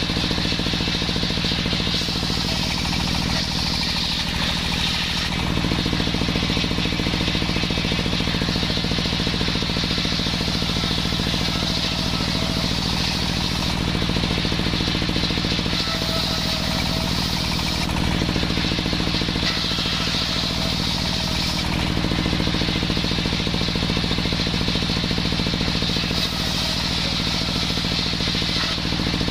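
Small engine of a homemade circular saw running steadily. Its note changes several times.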